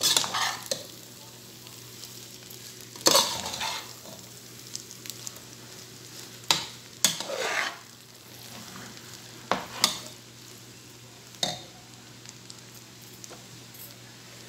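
Metal slotted spoon scraping and tossing spaghetti in a pot, about half a dozen strokes a few seconds apart, over a faint steady sizzle from the pan on the flame.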